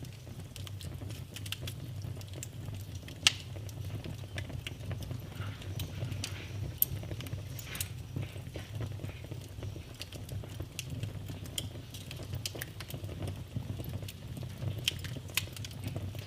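Wood fire in a fireplace crackling: irregular pops and snaps over a steady low rumble of the flames, with one sharp pop about three seconds in standing out as the loudest.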